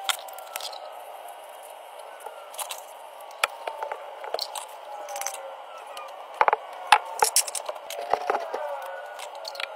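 White PVC drain fittings being handled and a sanitary tee set onto a cut PVC pipe: a series of sharp plastic clicks and knocks, the loudest few a little past the middle.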